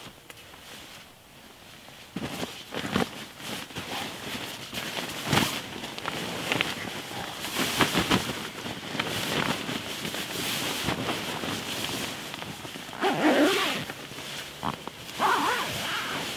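Rustling of a synthetic bivvy bag and sleeping bag as a person climbs in, shifts around and settles down. It starts about two seconds in and goes on in uneven bursts with soft knocks.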